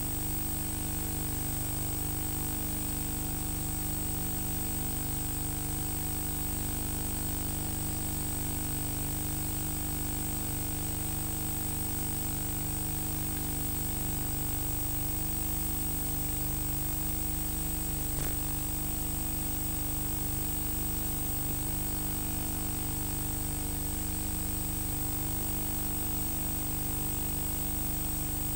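Steady hum and hiss of the recording, with several fixed tones held unchanged throughout. There is one faint click about eighteen seconds in.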